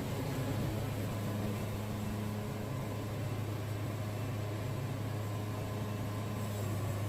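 Wood-Mizer band sawmill running with a steady, even hum, as the saw head makes a light squaring pass back over a freshly turned tie cant.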